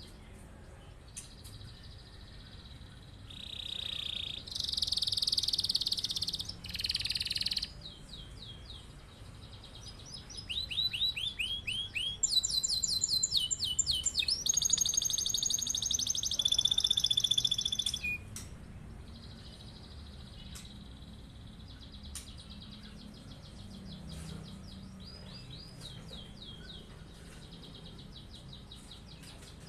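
Domestic canary singing long rolling trills of rapid repeated notes. There are two loud song phrases, the second and longer from about ten to eighteen seconds in, followed by softer trilling.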